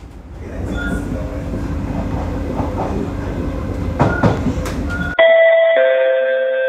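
Inside an MRT train carriage running between stations: steady rail running noise. About five seconds in it cuts to a two-note descending chime, the signal tone that comes before an onboard announcement.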